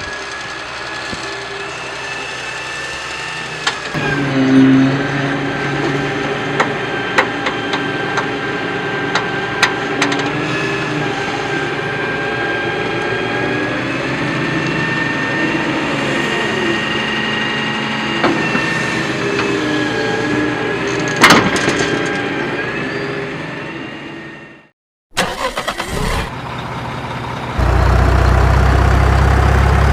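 A small vehicle motor runs steadily with a high whine and scattered clicks. It fades out and cuts off about 25 seconds in, then a louder, low steady engine sound starts near the end.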